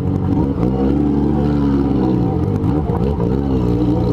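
Yamaha XJ6 motorcycle's inline-four engine revving under way, its pitch swinging up and down about twice.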